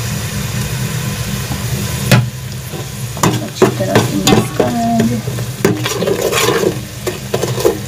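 Ground spices and chilli flakes tipped into hot ghee and fried onions sizzle in a metal pot. A sharp knock comes about two seconds in, then a slotted spoon stirs them, scraping and clinking against the pot while the frying goes on.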